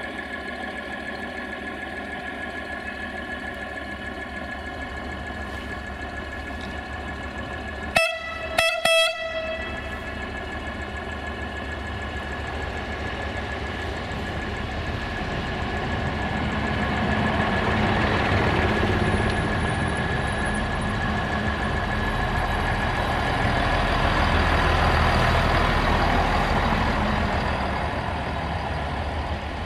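Bombardier Talent diesel multiple unit moving at low speed while shunting, its engine giving a steady hum. About eight seconds in it sounds a quick run of three short horn toots, then its running noise grows louder as it comes close and passes.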